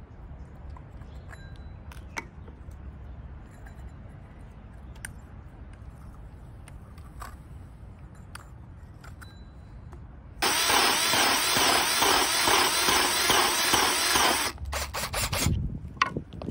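Low background rumble with a few faint clicks. About ten seconds in, a Milwaukee cordless drill suddenly starts running a cheap hole saw into an old wooden floorboard and cuts steadily for about four seconds. It then breaks into a few short bursts as the saw is worked up and down so its low-quality teeth don't clog.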